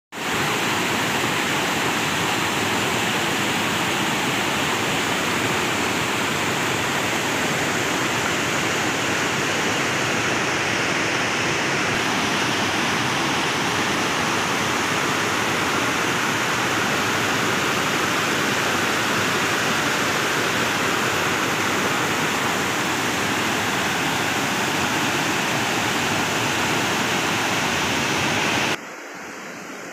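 A rain-swollen river in flood rushing over rock ledges: a loud, steady rush of whitewater. Near the end it drops suddenly to a quieter wash.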